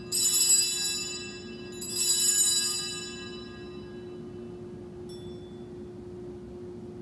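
Altar bells rung at the elevation of the chalice during the consecration: a bright ring at the start and another about two seconds in, each fading away, then a faint tinkle about five seconds in.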